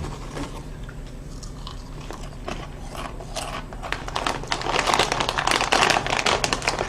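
Crunchy puffed potato snacks (white cheddar 3D potato bites) being bitten and chewed close to the microphone. The crunches are sparse at first, then come thicker and louder from a little before halfway through.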